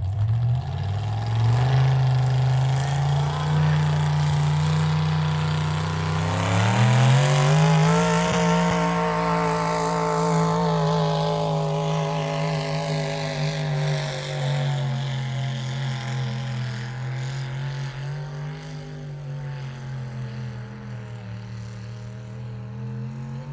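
Pulling vehicle's engine running hard under load as it drags the sled down the track. The revs climb about a second in and again around six to eight seconds, hold, then slowly sag toward the end.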